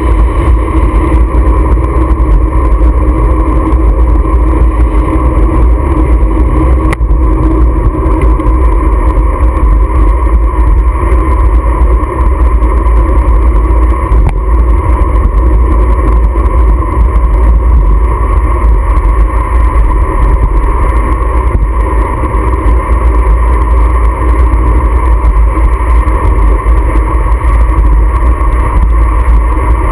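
Motorcycle riding at road speed: loud, steady wind rumble buffeting the handlebar-mounted camera's microphone, over a steady drone of engine and road noise.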